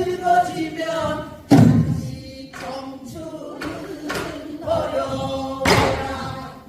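A pansori singer's voice sings a danga in the nasal, strained style of the genre. A buk barrel drum accompanies with spaced strokes, the loudest about a second and a half in and again near the end.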